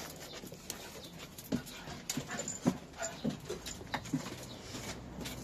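Small dogs panting and snuffling as they move about close by, with irregular short clicks and scuffs throughout.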